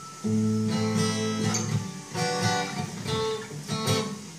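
Acoustic six-string guitar strumming a handful of chords, each left to ring, as the player checks whether it is in tune.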